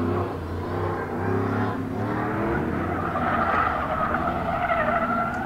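Chevy Cheyenne pickup truck running hard through an autocross course, its engine pulling in the first half. From about three seconds in its tires squeal through a hard turn.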